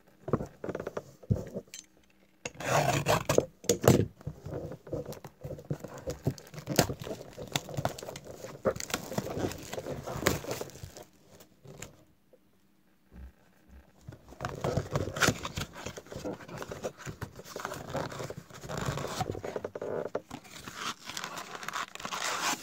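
Crinkling wrappers and cardboard tearing and scraping as a trading-card blaster box is opened and its packs handled. The noise comes in bursts, with a short lull a little past halfway.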